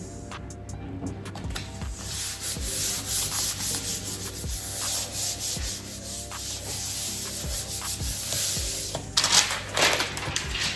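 Paper being rubbed and smoothed down onto repositionable poster board, a steady scratchy rubbing with a few quicker swipes near the end.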